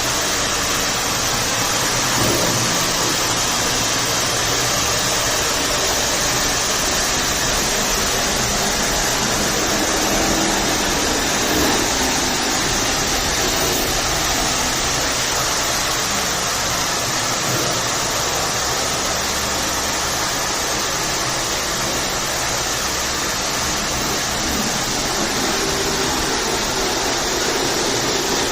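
Tile and grout cleaning equipment running with a loud, steady rushing hiss.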